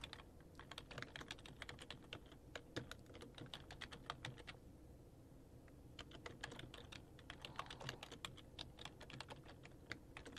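Quiet typing on a computer keyboard, keystrokes clicking in quick runs with a pause of about a second and a half around the middle.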